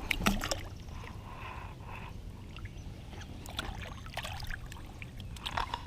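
Light splashes of lake water and small knocks against a kayak as a bass is let back into the water.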